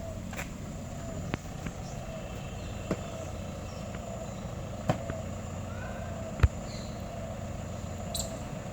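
Portable fire pump's engine running steadily, with about five sharp knocks spread across it, the loudest about six and a half seconds in.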